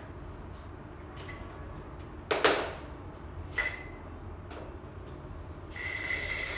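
A long-handled floor tool scraping and knocking on the floor: a sharp, loud scrape about two seconds in, a shorter squeaky scrape a second later, and a longer hissing scrape with a squeak near the end, over a steady low hum.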